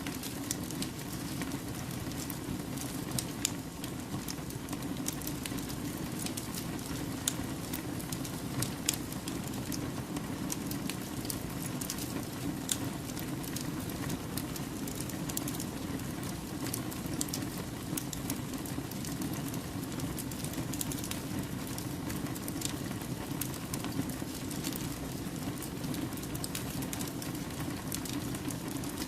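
Wood campfire burning: a steady low rush of flame with frequent small, irregular crackles and pops from the burning logs.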